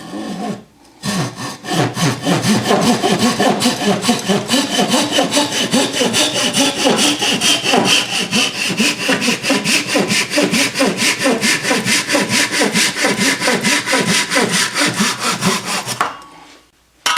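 Hand pull saw cross-cutting a block of wood in quick, even back-and-forth strokes, about four a second. The sawing starts about a second in and stops near the end.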